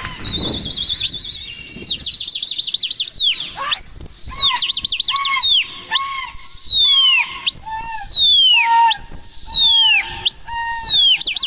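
Loud, high whistled calls, each swooping up sharply and then sliding down, repeated about once a second, with fast warbling trills between them.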